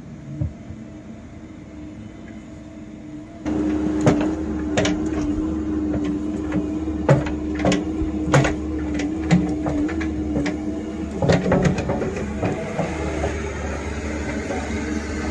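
A compact Bobcat excavator's engine running steadily, quieter at first and suddenly louder after about three seconds. Through the middle come a string of sharp clanks and knocks as its steel bucket works through soil and stones.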